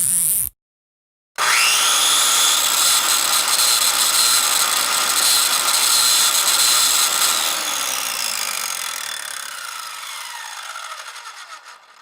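Electric power tool motor spinning up with a rising whine, running steadily at full speed, then switched off and winding down, its whine falling and fading away. A short burst from another effect cuts off just after the start.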